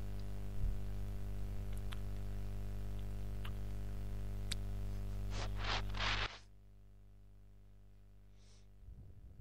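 Steady low electrical hum with a few faint clicks, then a brief rustle about five seconds in, after which the hum cuts off suddenly, leaving near silence.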